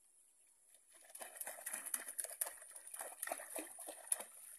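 A hooked fish thrashing at the surface of a pond, a burst of irregular splashes that starts about a second in and goes on for about three seconds.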